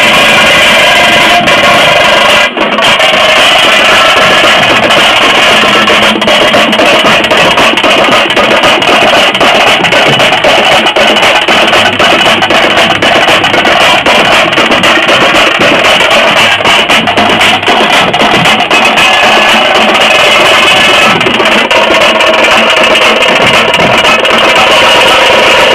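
A group of tamte frame drums beaten fast with sticks in a dense, driving rhythm, very loud and overloading the recording.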